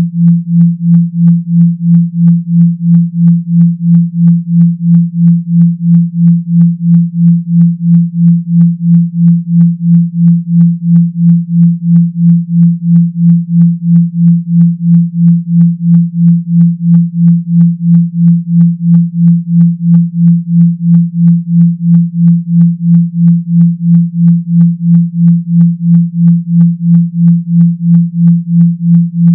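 Synthesized deep 170 Hz sine tone, a mock vibrator or phone-speaker water-eject buzz, pulsing on and off about two and a half times a second.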